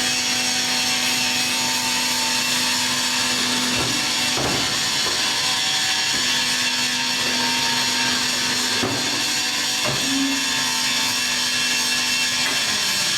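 Small pet-bedding baler running: a steady mechanical hiss with a held hum, broken by a few short knocks at irregular intervals.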